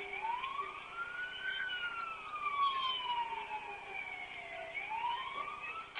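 Police siren on a slow wail: its pitch rises for about a second and a half, falls slowly for about three seconds, then starts rising again near the end.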